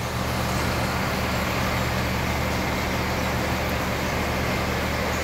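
Fire engine's diesel engine idling steadily, a low even running sound.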